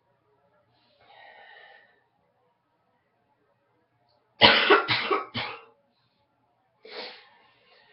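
A woman with a congested morning cold coughing: a quick run of three coughs about four seconds in, then one more cough about a second and a half later.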